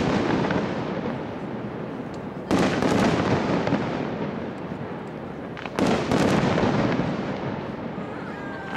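Aerial firework shells bursting: two loud bangs about three seconds apart, each followed by a long rumbling tail that slowly dies away.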